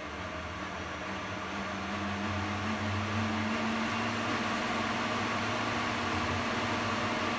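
Vetus E-line 100 electric boat motor running with no load, its hum rising in pitch and loudness over the first few seconds as it speeds up, then running steadily at high speed.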